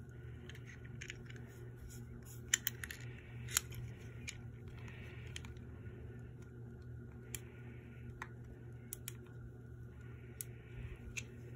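Small sharp clicks and taps with soft rustling, scattered irregularly over a low steady hum: a small transistor radio being handled and turned over in the hands.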